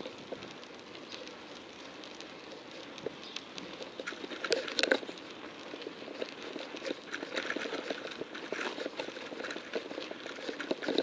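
Irregular crackling and rattling from a bicycle in motion, loudest in a cluster of sharp clicks about four to five seconds in.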